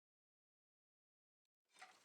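Near silence, with a faint sound coming in just before the end.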